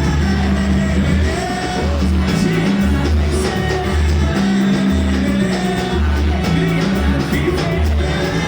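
A band playing a Brazilian pagode song, with singing over a steady, pulsing bass line.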